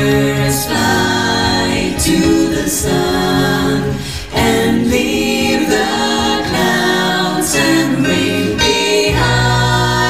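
A vocal ensemble of women's voices and a man's voice singing held close-harmony chords into microphones, the chords changing every second or two.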